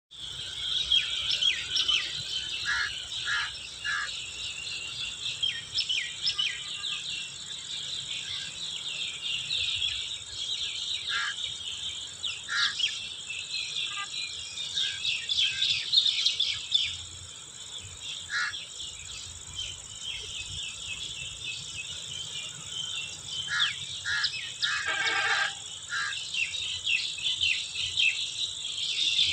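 Evening chorus of many birds chirping and calling over a steady background of insect chirring. A louder burst of calls comes about 25 seconds in.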